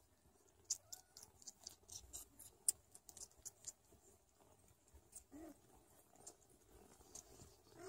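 Faint, irregular small clicks and rustles from a Sphynx mother cat licking and grooming her kittens as they clamber over her on a fleece blanket, the clicks thickest in the first few seconds.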